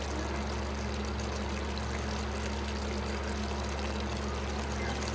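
Chicken curry boiling in a pot: a steady watery hiss over a low steady hum.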